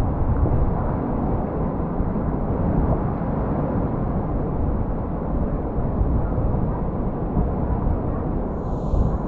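Steady low rumble of wind buffeting the GoPro Hero8's microphone, with a brief faint high chirp near the end.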